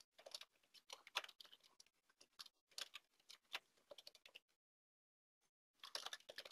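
Faint keystrokes on a computer keyboard: a run of typing for about four seconds, a short pause, then typing again near the end.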